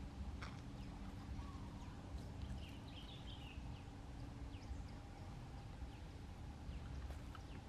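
Faint outdoor background noise with a low steady rumble, a few light clicks, and a brief cluster of high chirps about three seconds in.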